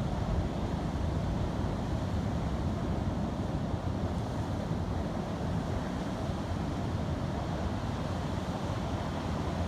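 Steady road and wind noise of a car driving, heard from inside the cabin, deep and even throughout.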